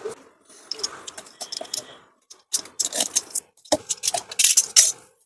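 Bubble-wrap and cardboard packaging rustling and crinkling in irregular bursts as hands unpack a boxed welding machine and its cables, loudest near the end.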